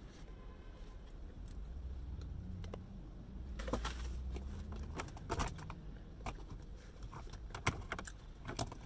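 Someone chewing a biscuit and handling a paper food box, with scattered rustles and clicks over a low steady hum in a car cabin.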